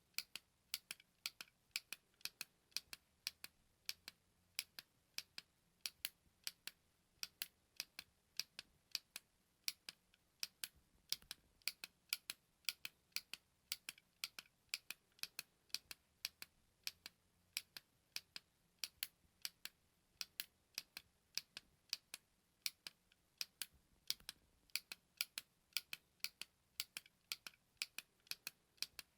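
Button clicks: a quick, uneven series of short, sharp clicks, several a second, some coming in close pairs like a press and release.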